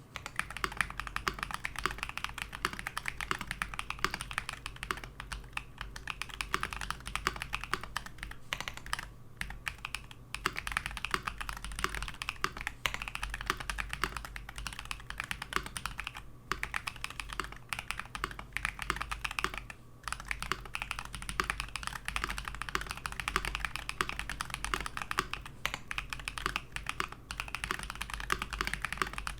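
Typing on a mechanical keyboard fitted with Harimau tactile switches with long springs: a steady stream of rapid keystrokes, with short pauses a few times.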